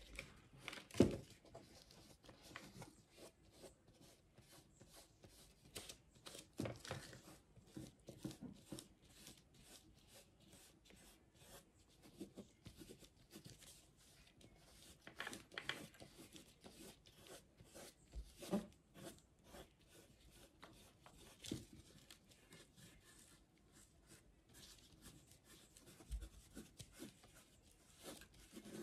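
Faint, irregular rubbing and scratching of fingertips and oil pastel on paper as the pastel is smudged and blended, with a few louder scrapes scattered through.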